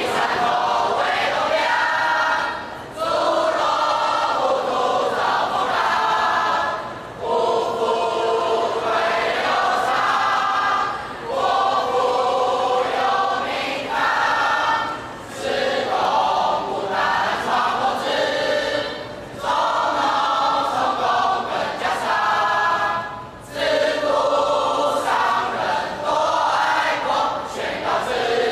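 A large group of students singing together as a chorus, a military marching song, in phrases about four seconds long with brief breaths between them.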